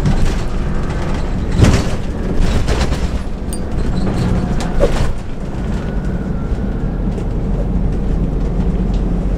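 Interior noise of a Mercedes-Benz OH 1526 coach bus on the move: a steady engine and road drone. Several sharp knocks and rattles from the body come over it, the loudest about a second and a half in.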